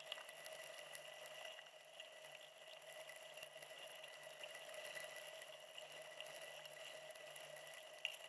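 Near silence: a faint, steady hum of a few fixed tones, with a few faint ticks.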